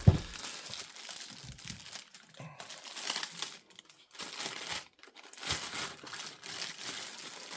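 A thump at the start, then irregular crinkling and rustling of packaging being handled.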